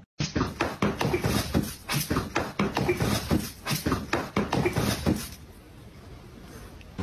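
Two cats play-fighting on bedding: a rapid, irregular run of scuffling noises that stops about five seconds in.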